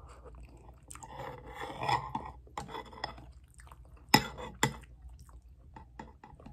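Close-up eating sounds: chewing and slurping a mouthful of noodles, then two sharp clicks a little after the midpoint as chopsticks knock against the bowl, with small utensil ticks.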